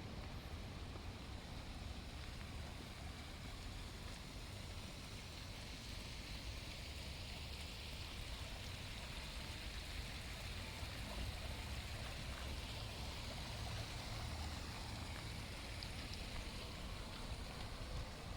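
Steady street ambience in the rain: a low rumble with a hiss over it, typical of traffic on wet roads, swelling slightly past the middle.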